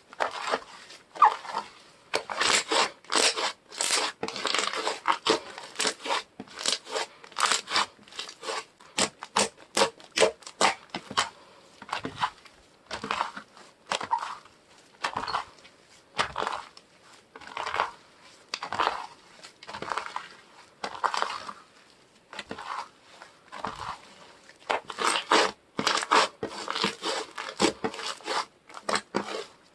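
Soft slime being squeezed, folded and stretched by hand, giving a run of irregular squishy clicks and pops of trapped air in clusters with short pauses.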